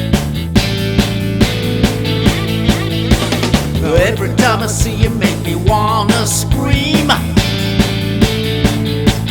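Rock music with no vocals: a steady drum beat, about two and a half hits a second, over held bass and guitar notes, with rising and wavering lead notes in the middle.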